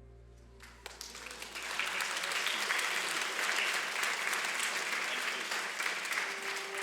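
Audience applauding: the clapping starts about a second in and swells to a steady loud ovation. Soft music returns under it near the end.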